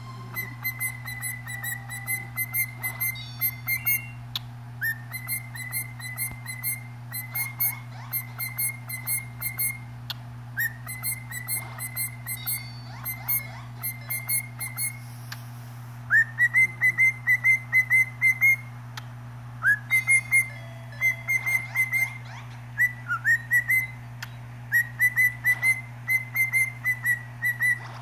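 Cockatiel whistling its song: phrases of short, quick notes at about four a second, all near the same pitch, some phrases opening with a quick upward swoop, louder in the second half.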